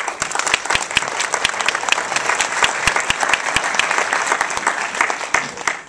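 Cinema audience applauding: a dense spread of hand claps that starts abruptly and dies away near the end.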